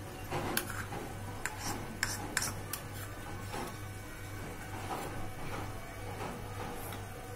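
Steel spoon clinking against the kadai several times in the first three seconds as cream is spooned onto the curry, over a steady low hum.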